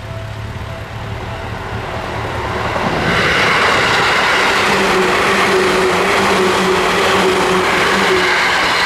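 Seibu Kokubunji Line commuter train passing close by. Its noise builds over the first three seconds and then stays loud, with a steady motor hum, easing off near the end.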